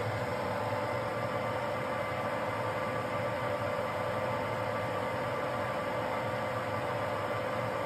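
Metal-turning lathe running steadily, spinning a cast iron casting held on a ring mandrel, with an even whine over a hum.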